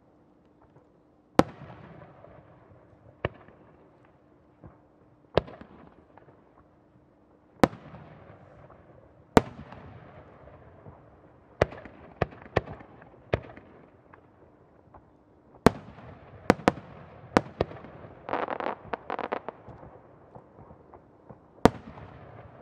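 Aerial firework shells bursting one after another, each a sharp bang with a trailing echo. A quick run of bangs comes past the middle, then about a second of dense crackling.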